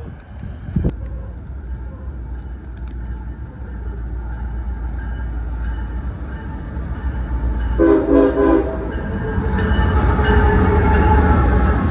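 Train locomotive approaching with a low rumble that grows louder, its horn giving a short blast about eight seconds in.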